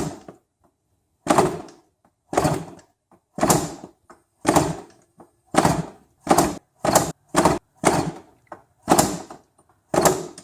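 Yamaha Banshee 350 twin-cylinder two-stroke being kick-started over and over, about one kick a second, each stroke a short whoosh of the engine turning over without firing. The engine doesn't catch after six months of sitting, which the owner puts down to stale fuel still in the carburettor bowl.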